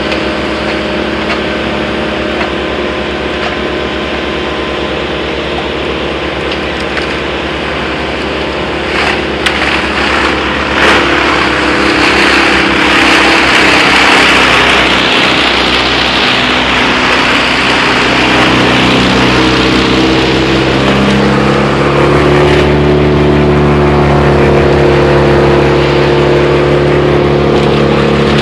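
Brush chipper running while a grapple feeds it a load of spruce brush. The engine runs steadily, then about nine to eleven seconds in a few knocks come as the branches are pulled in, followed by a loud, dense crackling and grinding as they are chipped. The engine pitch sags under the load and climbs back near the end.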